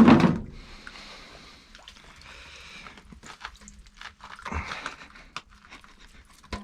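Handling noises at an ice-fishing hole: a loud knock at the start, then faint hiss and scattered small clicks and knocks, with a louder knock about four and a half seconds in.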